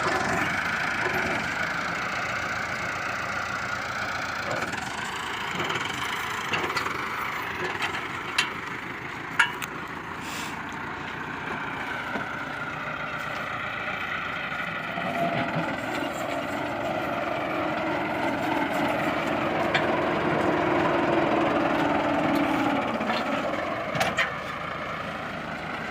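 Engine running steadily, its pitch drifting slowly up and down, with a few sharp clicks.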